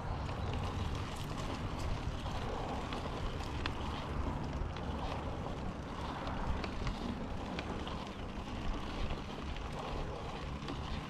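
Wind rumbling on the microphone over the rolling noise of mountain bike tyres on a dirt trail, with frequent small clicks and rattles from the Yeti SB5 full-suspension bike.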